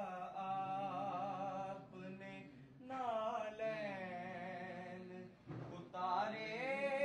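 A naat, an Urdu devotional song, sung unaccompanied in long, wavering held notes. The singing comes in phrases, with short breaks about two seconds in and about five and a half seconds in.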